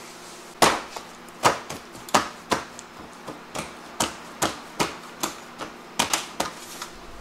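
Hands pressing and slapping dough into a round steel pan on a steel worktop, giving a run of sharp, irregular knocks, about two or three a second, starting just under a second in.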